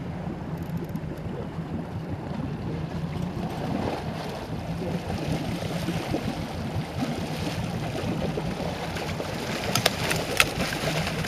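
Boat engine running steadily under the rush of water along the hull. About ten seconds in come a couple of sharp splashes and knocks as a wahoo is gaffed and thrashes at the surface.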